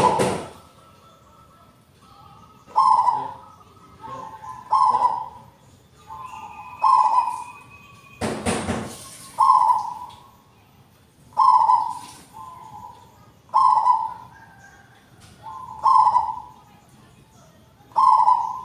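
Local zebra dove (perkutut) singing its cooing song, a short rolling phrase repeated about every two seconds. A loud noisy burst comes about eight seconds in.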